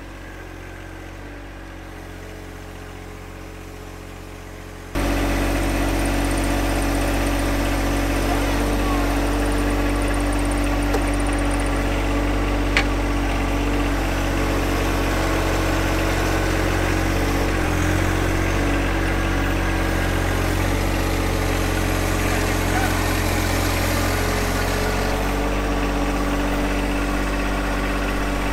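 John Deere 1025R compact tractor's three-cylinder diesel engine running steadily, much louder from about five seconds in, with a single sharp click near the middle.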